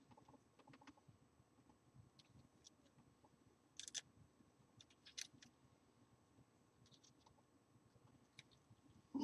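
Near silence: room tone with a few faint, scattered clicks, typical of small tools and parts being handled.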